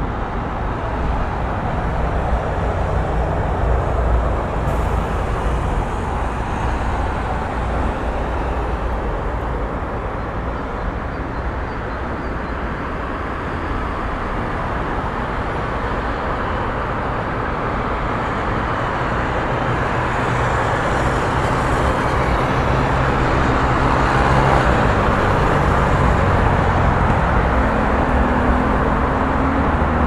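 Busy street traffic: a continuous wash of passing cars with a low rumble, swelling and easing gently. In the second half a vehicle engine's steady low hum joins in.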